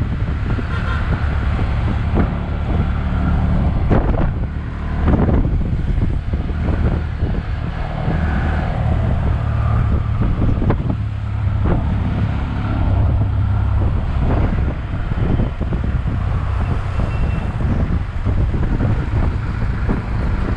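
Tuk-tuk (auto-rickshaw) engine running steadily as it drives along a town road, with wind and traffic noise on an exposed microphone.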